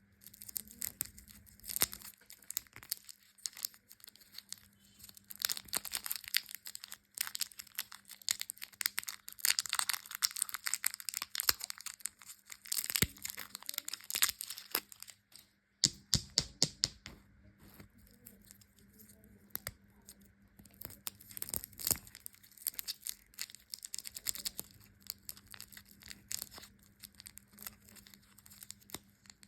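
Candy wrappers being crinkled and torn open, an irregular run of crackles and sharp clicks in clusters, over a faint steady hum.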